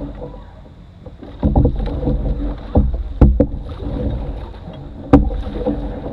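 Canoe being paddled: paddle strokes through the water and a few sharp wooden-sounding knocks of the paddle against the hull, heard through the boat, irregularly every second or two over a low rumble of water on the hull.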